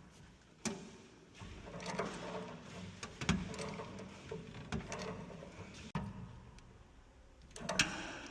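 Irregular clicks, knocks and clatter of hand work on fittings, with a louder cluster of knocks near the end.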